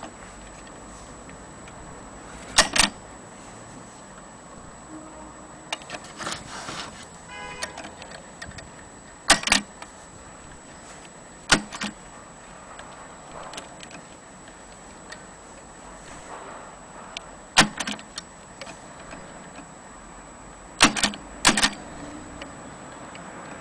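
1927 Mignon index typewriter being worked slowly, each letter a single sharp clack: about six loud strikes spaced a few seconds apart, some in quick pairs. Quieter mechanical clatter comes about a third of the way in.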